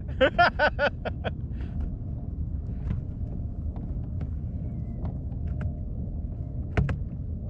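Steady low wind rumble on the camera microphone, with a man's short laugh of about six quick pulses just after the start. A few faint clicks follow, and a sharper knock comes near the end.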